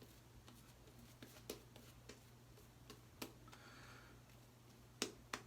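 Near silence: low room hum with a few faint, sharp clicks, the loudest two close together near the end.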